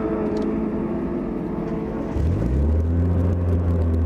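Car engines running with a steady drone; about halfway through a nearby engine's low note rises and then holds loud and steady.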